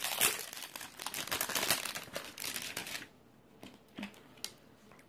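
Clear plastic wrap crinkling and tearing as it is pulled off a plastic candy tub for about three seconds. Then a few light clicks and taps from the container.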